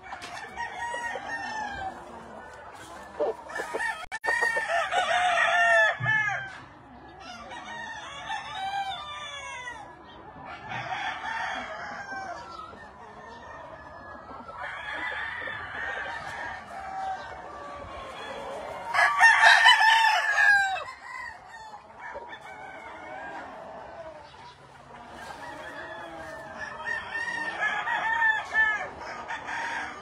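Many roosters crowing and clucking over one another, one crow after another, the loudest crow about two-thirds of the way through.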